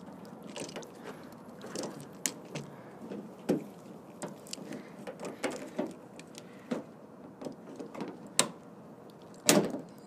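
Irregular clicks and knocks of a replacement exterior door handle being wiggled and pushed into its opening in a 1999 Toyota Sienna's front door, with the loudest knock near the end.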